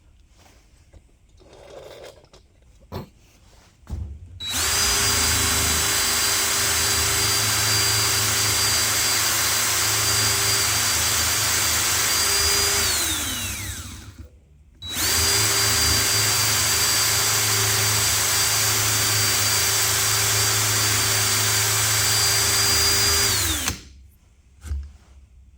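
Electric drill running twice at steady speed for about eight seconds each time, spinning an old door knob held in its chuck against a Scotch-Brite pad to polish it. Each run has a steady high whine that falls away as the drill spins down. A few faint knocks come before the first run.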